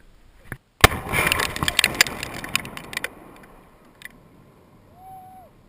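Explosive demolition charge detonating with one sharp blast about a second in, followed by about two seconds of crackling that dies away.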